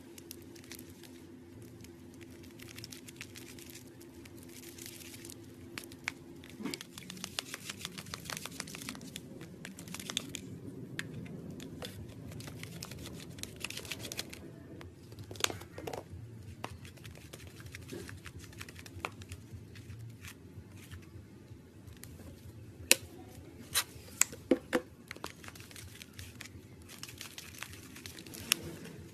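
Plastic spatula stirring and scraping a wet slime mixture in a plastic bowl: sticky clicks, crackles and squelches, with a few sharp, louder clicks in the last third. A low steady hum stops about a quarter of the way in.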